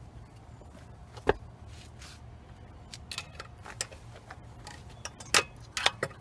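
Metal hand tools clicking and tapping against the parts inside an open small-engine crankcase while the governor arm is worked out: a sharp click about a second in, a few light ticks in the middle, the loudest click near the end followed by a couple more, over a low steady hum.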